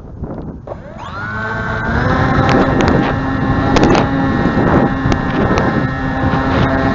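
Gusting wind on the microphone, then about a second in the motor and propeller of a 3-channel high-wing pusher RC plane spin up in a rising whine that settles into a steady, loud whine at full throttle, with wind buffeting throughout.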